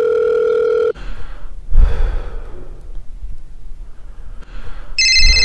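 Telephone dial tone that cuts off abruptly about a second in. Then a stretch of low, noisy sound with a loud burst about two seconds in. About five seconds in, an electronic phone ringtone starts trilling.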